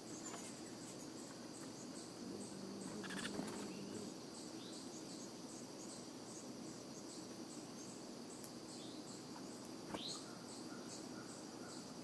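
Insects calling steadily: a high, evenly pulsing chorus, with a few short bird chirps now and then.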